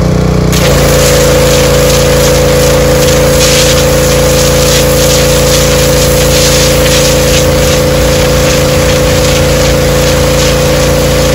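Gas pressure washer engine running steadily. About half a second in the wand is triggered: the engine takes the load and a high-pressure water jet hisses as it blasts against a salted cowhide to strip the flesh off it.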